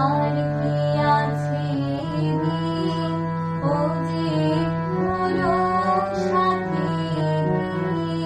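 A girl singing a Bengali song to her own harmonium accompaniment, the harmonium holding steady chords beneath the melody and changing chord every second or two.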